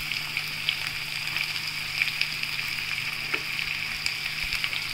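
Chopped onions dropped into hot oil in a kadai, sizzling steadily as they start to fry with whole spices, with occasional small crackles and light clicks as the spatula scrapes them in.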